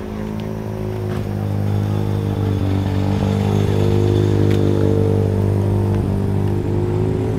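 Car engine running steadily close by, getting louder over the first couple of seconds and then holding an even pitch.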